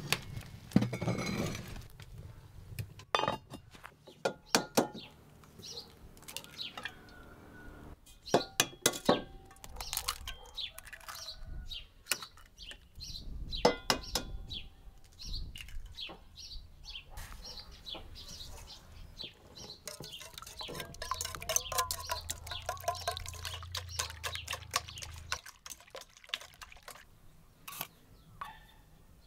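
Outdoor cooking handling sounds: a cast-iron pot shifted on the stove top, then eggs tapped and cracked into an enamel bowl and a wire whisk beating in it. Sharp clinks and knocks of crockery come throughout, with a run of quick ticks past the middle.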